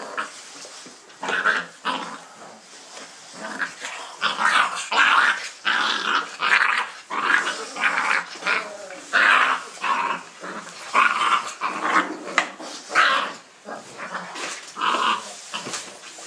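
Dogo Argentino puppies and their mother in a whelping box: many short, high-pitched yips and growls in quick succession, getting louder about four seconds in.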